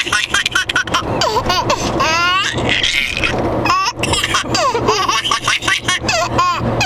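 Young child laughing in repeated high-pitched bursts.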